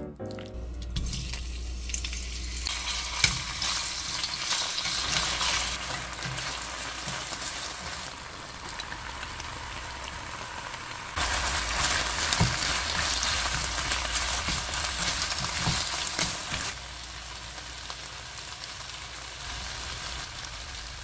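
Pork and marinated squid with vegetables sizzling as they are stir-fried in a nonstick frying pan. The sizzle is steady, gets louder about eleven seconds in, and settles lower again a few seconds later.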